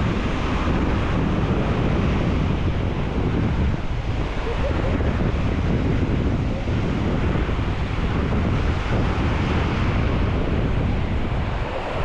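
Small surf breaking and washing up a sandy shore, with wind buffeting the microphone in a steady low rumble.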